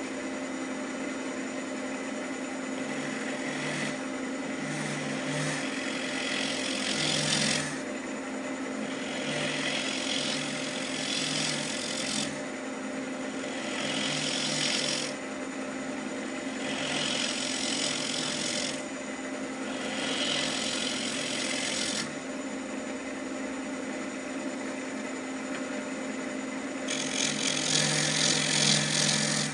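Wood lathe running at about 1300 rpm with a steady motor hum. A turning tool cuts a spinning pecan bowl blank in repeated passes of a few seconds each, about six in all, the loudest near the end.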